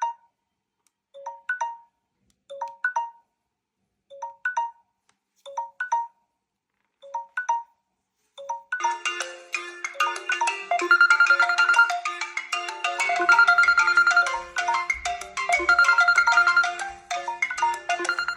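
Smartphone tones: a short chime of a few notes repeats about every one and a half seconds. About nine seconds in, a fuller marimba-style ringtone melody with a bass line takes over.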